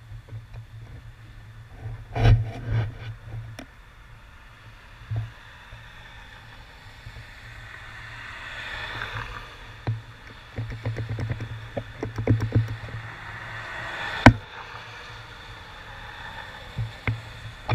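Cars passing through a rain-wet intersection, their tyres hissing on the wet road as they swell and fade by, twice in the middle. Low thumps run throughout, with a sharp knock early and a louder one later.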